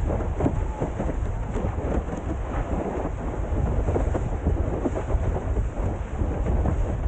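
Wind buffeting the camera microphone in a steady low rumble, mixed with the rushing and crackling spray of a windsurf board planing across choppy sea.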